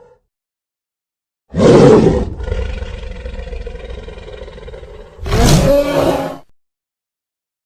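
Made-up Gorgosaurus roar sound effect: a loud blast, a softer rumbling growl held for about three seconds, then a second loud roar with a pitched cry, ending abruptly.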